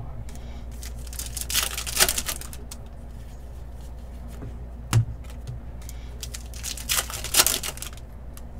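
Trading card packs and cards being handled: two stretches of crinkling wrapper and rustling cards, with a single sharp tap between them.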